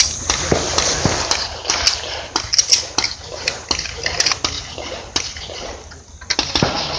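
A string of pistol shots, several a second at first, with a short lull about five to six seconds in and a few more shots near the end.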